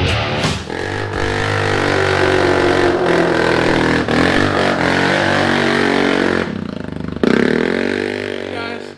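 Kawasaki Brute Force 300 four-wheeler's single-cylinder engine revving hard, its pitch climbing and falling. About two-thirds through it stutters briefly, then revs up again.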